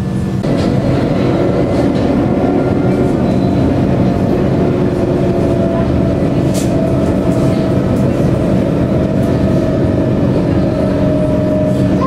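Interior sound of an Alstom Citadis 302 electric tram getting under way about half a second in and then running steadily: wheels rumbling on the rails with a steady electric motor hum.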